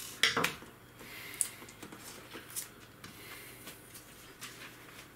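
Light clicks and taps of a screwdriver being handled and put down on a hard worktop: two sharper clicks just after the start, then a few softer scattered taps.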